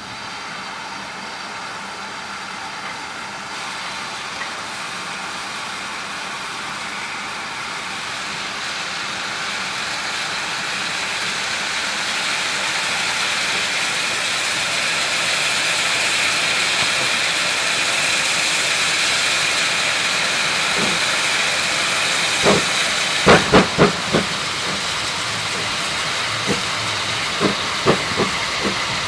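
GWR Small Prairie 2-6-2 tank engine No. 5541 approaching with a steady hiss of steam that grows louder as it nears. Near the end its wheels give a quick run of sharp clicks over the track, then a few more scattered clicks.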